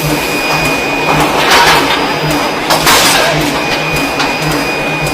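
Forging-shop machinery running with a steady low beat several times a second and a thin high whine over it. Two louder hissing swells come through about a second and a half in and again near three seconds.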